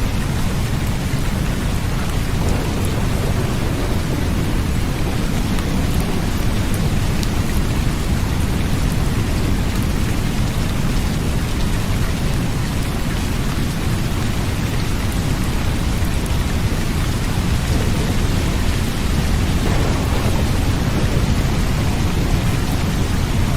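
Steady rain falling, with a continuous low rumble underneath and faint scattered drop ticks.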